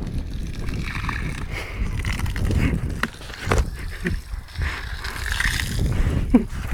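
Water from a garden hose splashing onto a concrete slab, under an irregular low rumble from the phone being moved, with a few sharp knocks.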